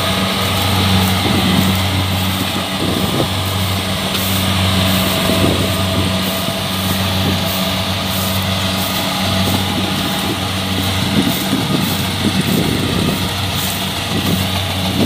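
Kubota DC-70 combine harvester running steadily under load, its diesel engine droning beneath a broad rush of threshing machinery, with faint regular ticks.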